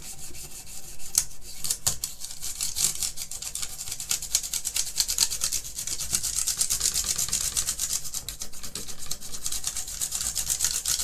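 Brisk back-and-forth scrubbing over the switch plate of a BBC Master keyboard with the keycaps off: a steady run of rapid, hissy rubbing strokes, as dirt is cleaned off the keyboard.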